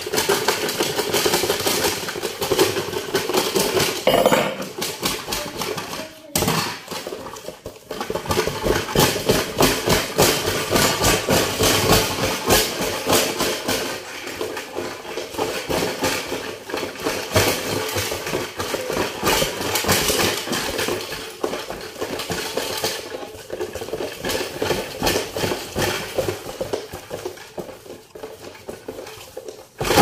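Homemade cardboard-box washing machine running hard: a small motor's hum under a fast, continuous rattle as the taped box shakes and jitters on the wooden floor. The rattle briefly drops away about six seconds in, then comes back just as loud.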